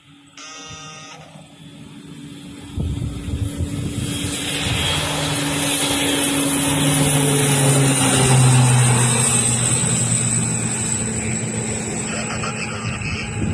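Turboprop aircraft flying past: the engine noise builds to a peak about eight seconds in, its whine and engine tones sliding down in pitch as it passes. A brief beep-like tone sounds just before the noise rises.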